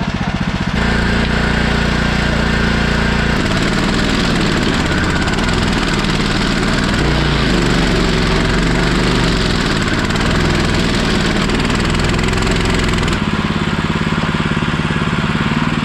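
Stump grinder's petrol engine running steadily, its note shifting a few times as the load changes while it works.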